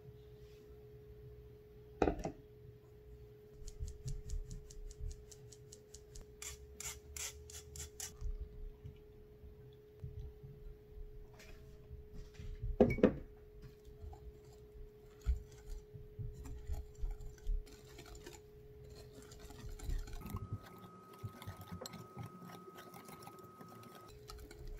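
Cake flour being sifted through a metal mesh sieve into a glass bowl, the sieve tapped in a run of quick even ticks, with a loud clunk about halfway through. In the second half a wire whisk scrapes round the glass bowl, mixing pancake batter. A faint steady hum sits underneath.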